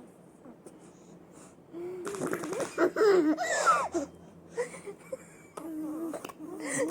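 A baby laughing and squealing in bursts, starting about two seconds in, with a high gliding squeal near the middle and more laughter near the end.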